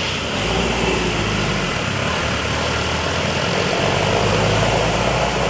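A bus engine running close by: a steady low rumble that comes in about half a second in and grows slightly louder near the end.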